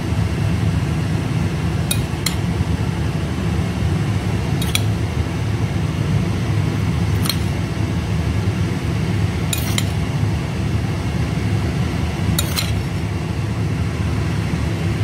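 Metal spoon clinking lightly on a glass bowl every couple of seconds, some taps in quick pairs, while minced beef is spooned out onto rice in a glass dish. A steady low hum runs underneath.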